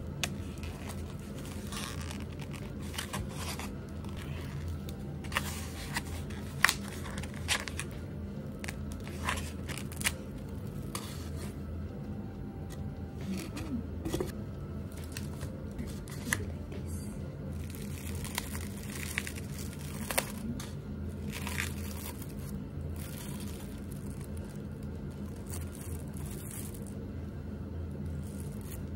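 Plastic food packaging crinkling and tearing as a pack of natto is opened, with scattered clicks and taps. A steady low hum runs underneath.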